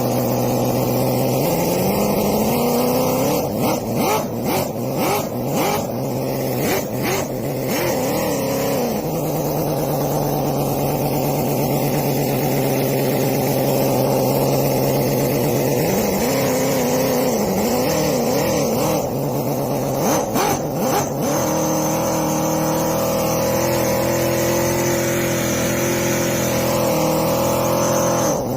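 Miniature Cison V8 engine model running, started by push button. It idles, is revved up and down several times in two spells, and settles at a higher steady speed near the end, with brief crackles during the revving.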